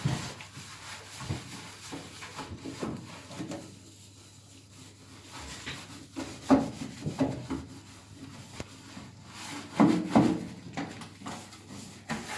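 Sponge rubbing and scrubbing inside a microwave, with several knocks and clunks from handling, the loudest about six and a half and ten seconds in.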